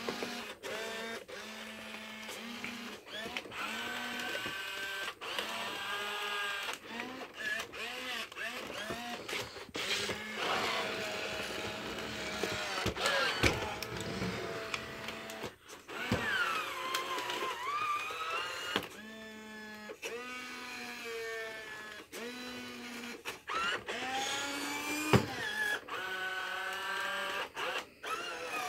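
Robosapien V2 toy robot's geared electric motors whining in short stop-start runs, the pitch rising and falling as its arms, waist and legs move, with clicks from the plastic gears and joints. One harder knock comes near the end.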